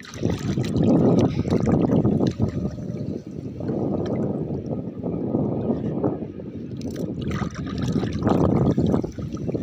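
Water splashing and dripping as a gill net and its float line are hauled up out of the water, in uneven surges.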